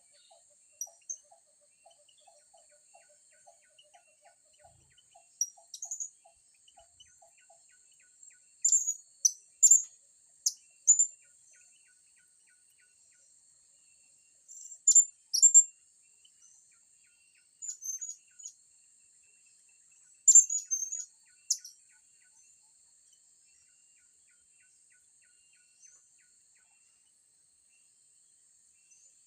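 Blue-crowned hanging parrots (serindit) calling: short, shrill, very high chirps in several separate bursts, the loudest a little before and after the middle.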